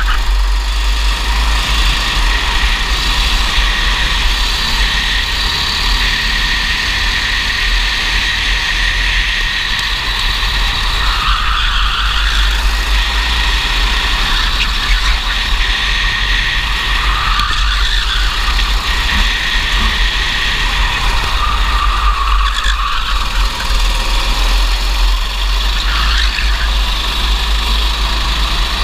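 Racing kart engine running hard on track, its pitch rising and falling several times as the kart slows and accelerates through corners, over a steady low rumble.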